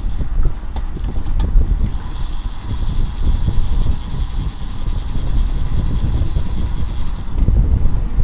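Wind rushing over the microphone of a camera riding along on a racing bicycle at speed, a loud, fluttering low rumble, with a faint steady high whine from about two seconds in until near the end.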